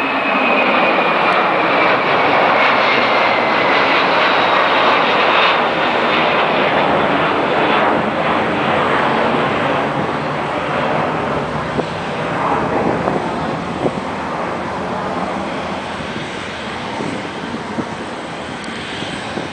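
Boeing 767-300ER's twin jet engines at takeoff climb power, a loud steady roar with a high whine that falls in pitch over the first few seconds. The roar slowly fades as the airliner climbs away.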